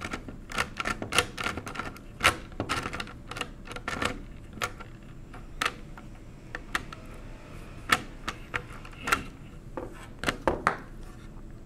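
Irregular metallic clicks and light taps from the metal carriage of a 1920s Monroe model K mechanical calculator as it is handled and turned in the hands.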